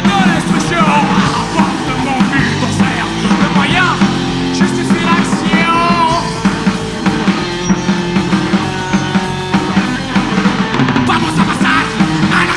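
Punk rock band playing live with drums, electric guitars and bass, at a steady driving beat.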